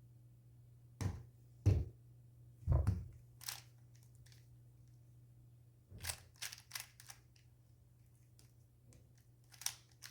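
Plastic clicks and clacks of a 3x3 speed cube being turned, in short irregular bursts of a few turns with pauses between.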